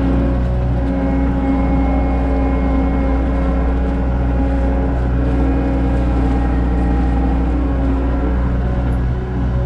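CAT 279 skid steer's diesel engine running at a steady speed, with a low, even hum.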